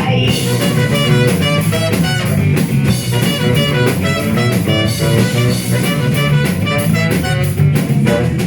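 Live rock band playing an instrumental break: electric guitar and drum kit driving on at a steady beat without vocals.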